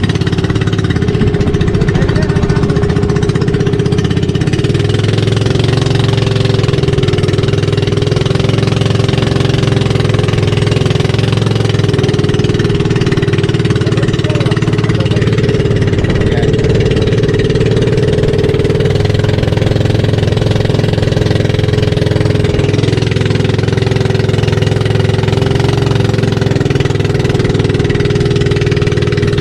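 Small outrigger fishing boat's engine running steadily at a constant pitch.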